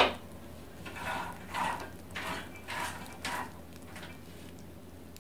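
Roasted peanuts rattling: one sharp click, then about five short rattling scrapes roughly twice a second, dying away after about three and a half seconds.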